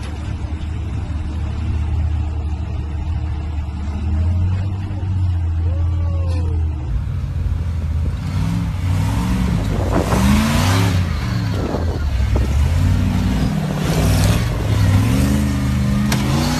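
A lifted off-road 4x4's engine idling steadily; after a cut about seven seconds in, another lifted 4x4's engine revving up and down again and again as it climbs a rock ledge, with loud noisy bursts now and then.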